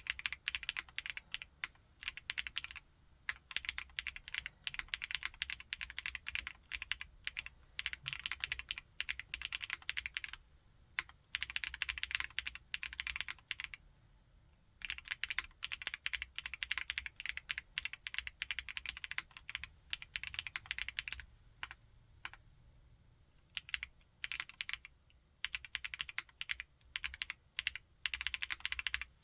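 Typing on a Chilkey ND TKL aluminium-cased mechanical keyboard with Kailh Blue Lotus switches. Fast runs of keystrokes are broken by short pauses, with slower, scattered presses in the last few seconds.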